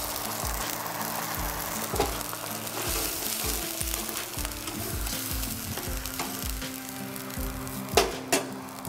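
Herbal vegetable stock hissing in a hot pan on a gas stove while a metal ladle stirs it, with a few sharp clinks of the ladle on the pan, two close together near the end.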